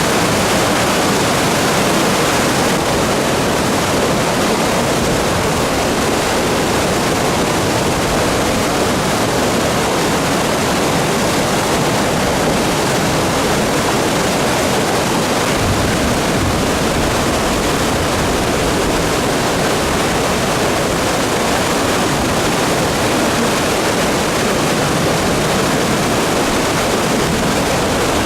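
A mountain river in flood after record typhoon rain: a loud, steady rush of turbulent water.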